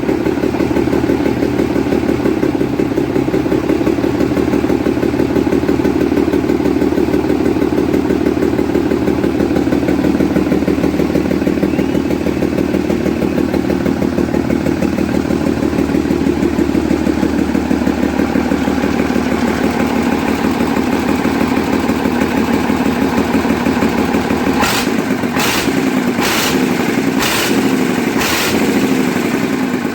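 Scania 111's inline-six diesel engine running steadily with its timing gear train exposed, its injection timing still off. Near the end, five sharp clicks just under a second apart sound over it.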